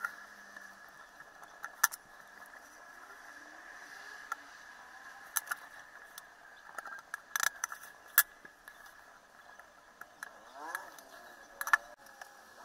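Scattered small sharp clicks and taps, about five standing out, from tools handling small metal parts of a camera under repair, over a faint steady high-pitched whine.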